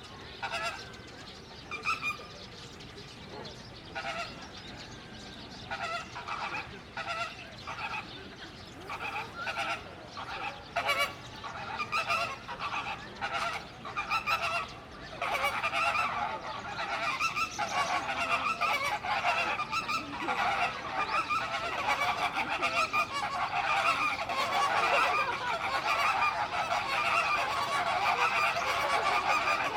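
A flock of birds honking: scattered single honks at first, building into a continuous overlapping chorus about halfway through.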